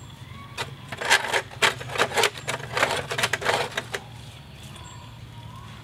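A large knife chopping with quick, irregular strikes for about three seconds, then stopping.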